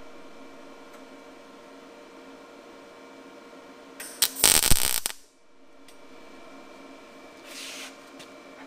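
Arc welder laying a short tack weld on a steel jig: a loud crackling arc for about a second midway, over a steady electrical hum. A softer brief hiss and a couple of light clicks follow near the end.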